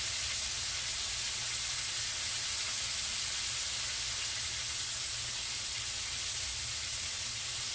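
Chicken pieces frying in hot oil in a skillet on a gas stove, sizzling steadily.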